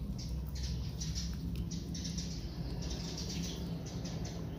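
Two cats eating rice from a plastic plate, making short chewing and lapping sounds a few times a second over a low steady rumble.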